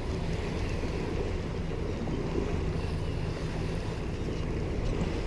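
Steady low hum and rumble of a small boat under way, with water noise and wind on the microphone.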